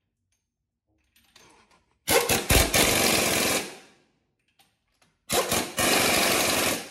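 Pneumatic impact wrench driving the lug nuts on a truck wheel, in two runs: one about two seconds in and one about five seconds in. Each run opens with a few quick blips of the trigger, then hammers steadily for about a second and a half and cuts off suddenly.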